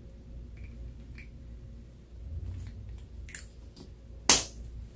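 Plastic lipstick tube being handled, with a few faint clicks, then one sharp click near the end as its cap snaps.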